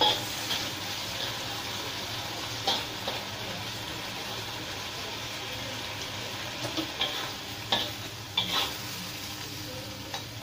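Long beans sizzling in a hot wok over a gas flame, with a steady frying hiss, while a metal spatula stir-fries them, scraping and clinking against the wok at irregular moments, most often near the end.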